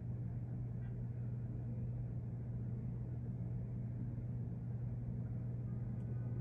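A steady low hum with no distinct events, even throughout.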